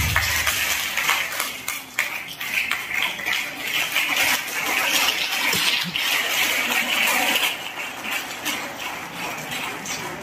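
Audience applause, a dense patter of many hands clapping, beginning as the dance music stops and thinning out over the last few seconds.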